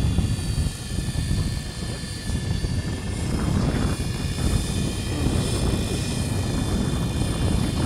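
GAUI Hurricane 550 electric RC helicopter in flight, its motor and rotor giving a steady whine of several high tones, over a low rumble.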